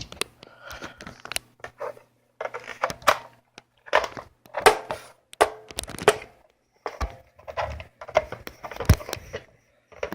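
Plastic parts of an airsoft gun being handled while its battery is fitted: a quick, irregular string of clicks, knocks and scrapes.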